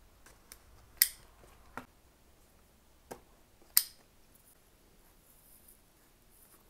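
A utility knife slices through the seal stickers of a cardboard box with sharp clicks and snaps, two of them much louder, about a second and almost four seconds in. A faint rustle of cardboard being handled follows.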